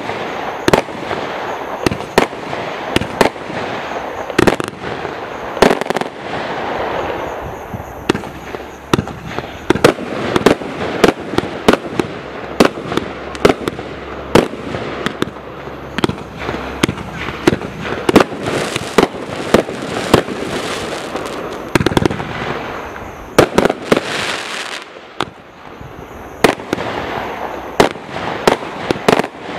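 Total FX Trafalgar combined multi-shot firework cake firing: a steady string of sharp launches and bangs, about one or two a second, over a continuous crackling hiss, with a brief lull a little before the end.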